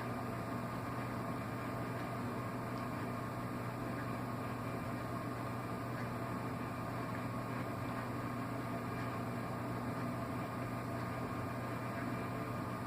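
Steady machine hum with a low drone and an even hiss, unchanging, with no sudden sounds.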